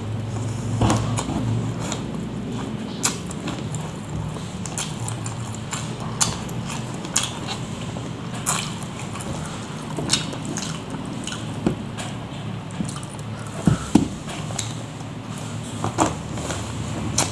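A man chewing mouthfuls of rice and grilled catfish close to the microphone: wet chewing with short, sharp mouth clicks every second or two over a steady low hum.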